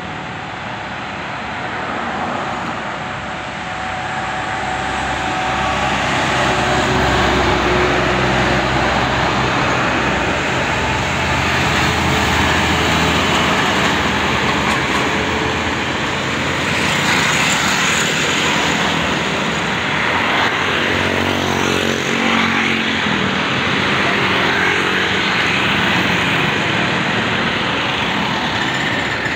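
Trucks and motorbikes climbing a steep hill past the roadside, with diesel truck engines pulling under load and tyre noise on the asphalt. About two-thirds of the way through, one engine's note rises as it revs.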